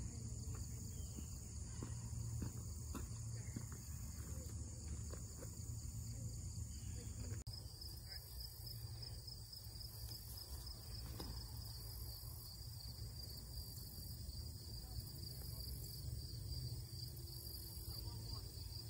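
Steady high-pitched drone of a late-summer insect chorus in tall grass, which changes abruptly to a lower-pitched drone about seven seconds in, over a low steady rumble.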